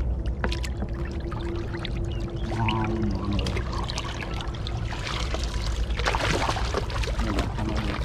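Shallow water sloshing and splashing as fish are handled between a woven bamboo basket and a floating plastic tub, with a burst of louder splashing about five seconds in.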